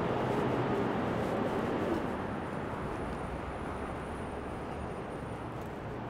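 Steady rush of motor traffic on an elevated expressway overhead, easing slightly after about two seconds, with a faint thin high whine in the middle.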